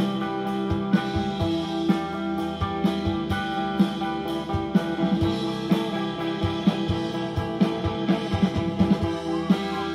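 Live rock band playing an instrumental passage with no vocals: two electric guitars, electric bass and drum kit. A heavy drum accent falls about once a second.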